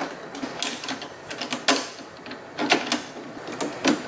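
Small stainless screws and nuts clicking and rattling against the metal bumper bracket as they are fitted by hand, with a few sharp clicks at irregular intervals.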